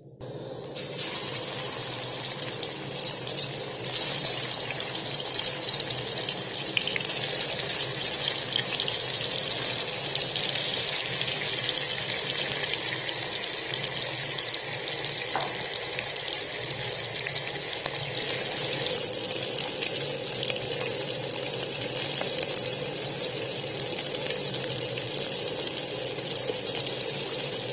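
Marinated fish pieces sizzling as they shallow-fry in hot oil in a kadhai. The steady hiss begins as the first piece goes in and grows louder about four seconds in.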